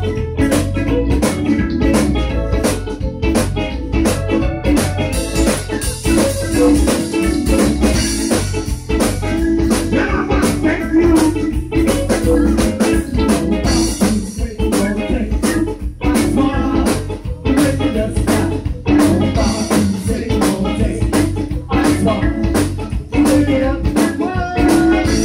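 Live zydeco band playing an instrumental stretch: a diatonic button accordion holds the melody over electric bass, drum kit and keyboard, with a rubboard scraping a steady, fast rhythm.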